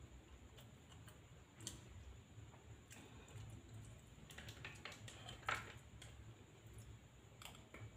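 Faint clicks and scrapes of a metal spoon against a plate of rice during eating, scattered and irregular, the loudest a scrape about five and a half seconds in.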